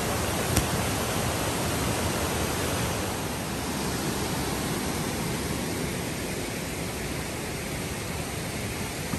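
Dingmans Falls rushing: a steady, even roar of falling water that eases a little about three seconds in. A single brief click sounds just after the start.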